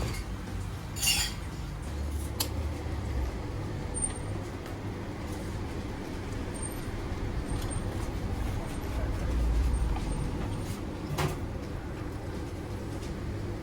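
Steady low rumble of road traffic, swelling twice as vehicles pass, with a few sharp clicks and knocks close by.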